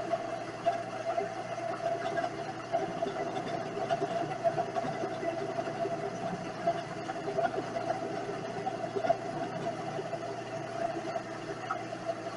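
Vevor 7x14 mini lathe running, with a steady whine from its motor and drive. Small irregular clicks and rattles run through it as it turns threaded rod.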